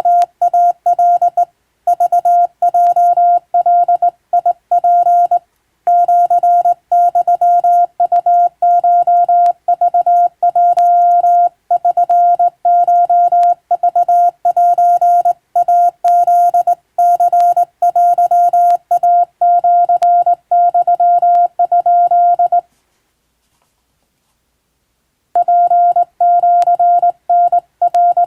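Hand-keyed Japanese (wabun) Morse code sent as a steady CW tone, switching on and off in dots and dashes, with a gap of about two and a half seconds near the end between groups.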